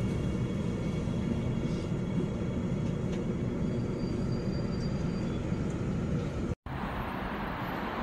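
Gyeongui–Jungang Line electric subway train running, heard from inside the car: a steady low rumble of wheels on the track. About six and a half seconds in, the sound drops out for an instant and returns as a brighter, hissier rumble.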